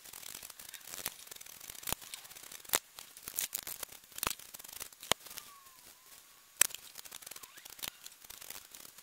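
Carving knife paring shavings off a small block of wood held in a bench vise. It makes irregular short slicing and scraping strokes, with a few sharper clicks between them.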